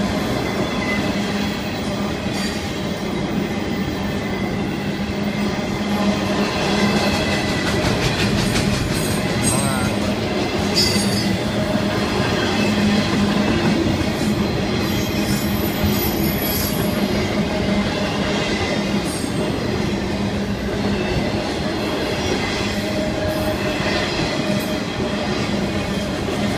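Florida East Coast intermodal freight cars rolling steadily past: a continuous rumble of steel wheels on rail with clacking over the joints, and a few brief high wheel squeals about a third of the way in.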